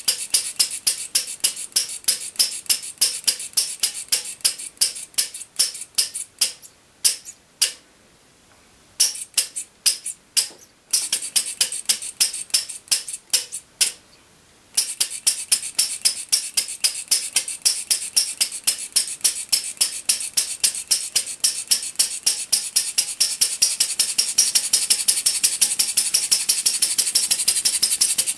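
Small RMC Paradox non-compression engine running on gasoline with buzz-coil ignition, beating out sharp clicks about four to five times a second. It fires unevenly at first, skipping beats with two brief gaps, then settles into a steady beat.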